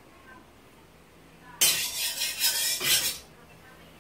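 A metal spatula scraping and clanking against the inside of a steel wok for about a second and a half, starting about a second and a half in, as the wok is dried out over the gas flame.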